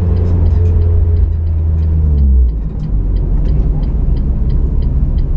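Car engine heard from inside the cabin, running steadily under throttle, then about two and a half seconds in the throttle is lifted and the engine note drops as the car slows. A faint, fast regular ticking runs underneath.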